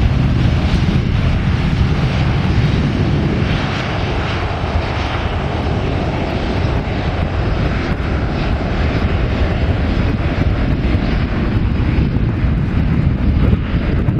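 Boeing 737-500 airliner's CFM56 turbofan engines running at takeoff as it rolls along the runway: a steady, loud jet-engine noise with a deep low rumble.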